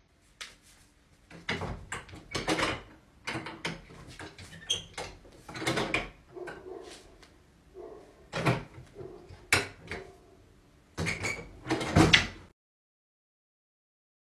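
A door being handled: a series of irregular knocks, clicks and rattles from the door and its fittings, stopping a couple of seconds before the end.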